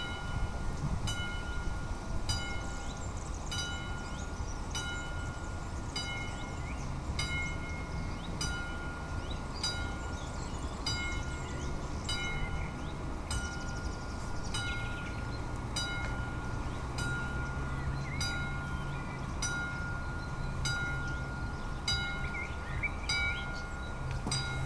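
AŽD 71 level crossing warning bell dinging steadily with the barriers down, one ringing strike about every three-quarters of a second. A low drone grows in under it during the second half.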